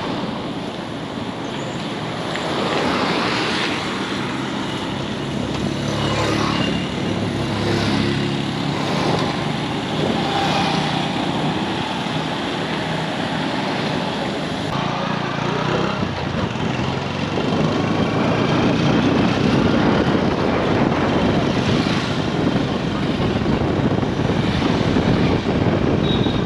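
Street traffic: a steady noise of motor vehicles and motorcycles running and passing, with an engine note standing out from about six to ten seconds in.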